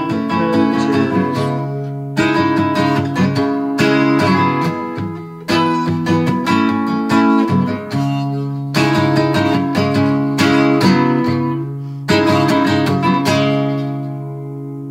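Acoustic guitar strummed in an instrumental outro with no singing, the chords coming every second or two; near the end the last chord is left to ring and fade away.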